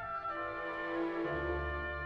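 Orchestral background music with held chords; the chord changes and a low bass note comes in partway through.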